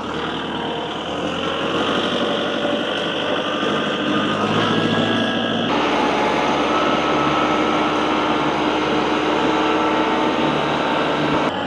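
Tractor engine running steadily under load while it drags a blade through dirt to level the ground. The sound shifts abruptly about halfway through.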